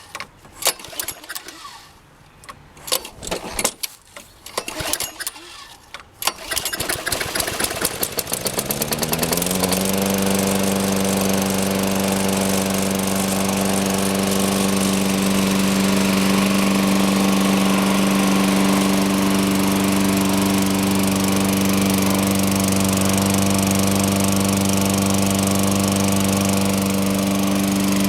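Lawn mower's 6.5 hp Tecumseh engine being started: separate sharp strokes and firings for about six seconds, then the engine catches, speeds up over a few seconds and settles into steady running.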